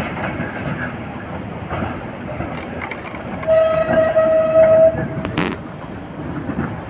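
Vintage two-car tram rolling round a curve on street track, with a steady squeal for about a second and a half midway, then a sharp clack.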